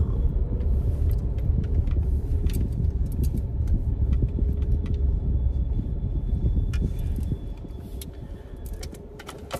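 Low road rumble inside a moving car, with small clicks and rattles scattered through it; the rumble drops off about seven seconds in.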